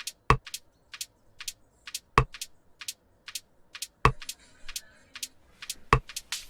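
A sparse break in electronic background music: quiet hi-hat-like ticks about four a second, with a heavier drum hit roughly every two seconds.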